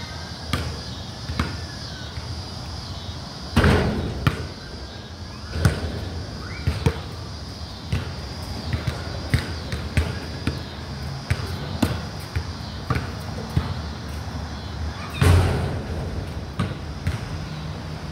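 Basketball bouncing on a concrete court in single, unevenly spaced bounces, with two much louder impacts that ring briefly, about 3.5 seconds in and near the end.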